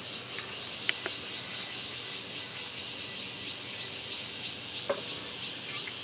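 Steady high-pitched chorus of insects outdoors, with a few brief sharp chirps about a second in and again near five seconds.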